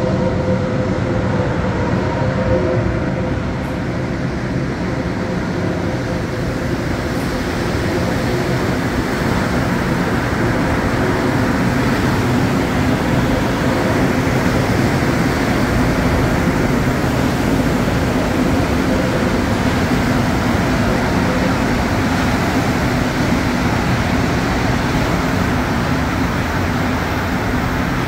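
Montreal Metro MR-73 rubber-tyred metro train running on the station tracks: a steady, even rumble, with a faint steady tone over it in the first few seconds.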